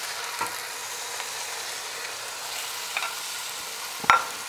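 Browned chicken pieces sizzling in hot oil with fried onion and tomato paste in a nonstick pot, with a steady hiss of frying. There are a few light clicks from stirring, and a sharp knock about four seconds in.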